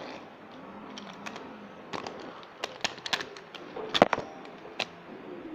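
Hot Wheels toy monster trucks knocking and clattering on a hard tile floor as they are handled: a string of sharp knocks, the loudest about four seconds in.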